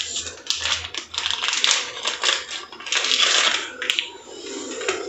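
Plastic biscuit wrapper of Oreo cookies rustling and crinkling in hand as the packet is opened, in irregular crackly bursts.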